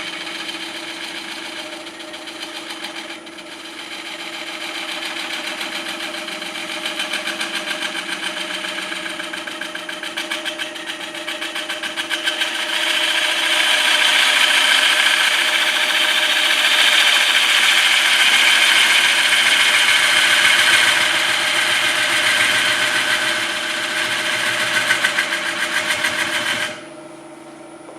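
Turning tool cutting a spinning wet hard maple bowl blank on a STRATOS XL cast-iron wood lathe, roughing out the bowl's outside: a continuous rough cutting noise with a fast even pulse over the steady hum of the lathe's VFD motor. The cut grows louder about halfway through and stops abruptly near the end, leaving only the motor hum.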